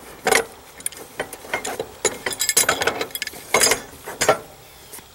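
Fabric tool bag being packed and zipped shut: rustling fabric, light clinks of metal gear shifting inside, and several short zipper rasps.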